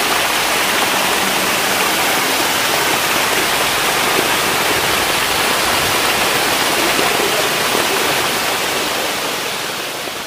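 Steady splashing of water jets spraying from pipes onto the surface of crowded catfish tanks, fading near the end.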